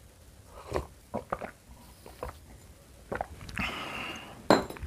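A person eating close to the microphone: a series of sharp crunching bites and clicks, the loudest near the end, with a short rustling crunch just before it.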